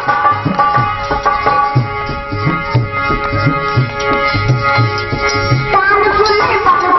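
Instrumental interlude of a ghazal: tabla strokes keep a steady rhythm under held, sustained chords. A wavering melody line comes back in near the end.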